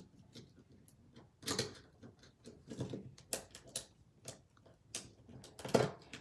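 Small irregular clicks and taps, about six or seven spread over the few seconds, as fingers pry at and lift small parts out of an opened iPhone 3GS's metal and plastic housing.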